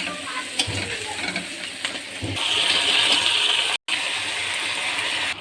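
Metal kitchen utensils clinking a few times, then a steady hiss starting about halfway through, broken by a sudden brief dropout and then continuing more dully.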